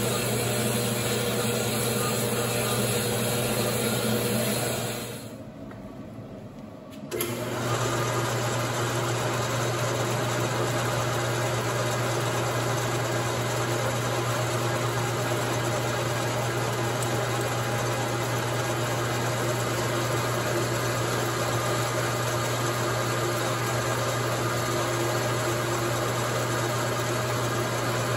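A metal-cutting horizontal bandsaw running through a steel pin for about five seconds. After a short quieter gap, a metal lathe takes over about seven seconds in and runs with a steady hum and whine while it machines the steel bar.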